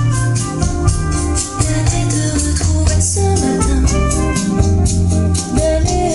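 Recorded music played loud through a hi-fi system: a heavy bass line under held organ-like chords and a steady shaker-like percussion.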